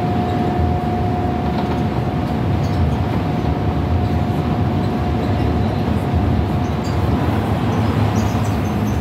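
Interior noise of a Scania L94UB Wright Solar single-deck bus at cruising speed: the rear-mounted nine-litre diesel drones steadily under road and tyre rumble, with a steady whine that fades about seven seconds in and a few light rattles.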